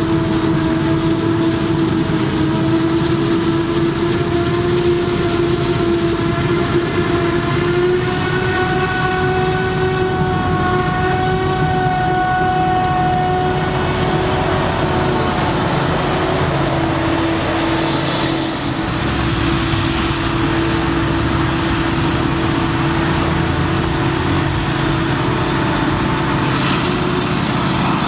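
Claas Jaguar 940 forage harvester chopping maize under load: a loud, steady mechanical whine with several overtones over the engine's rumble. The whine climbs slightly in pitch through the first half, and its higher overtones fade about halfway through.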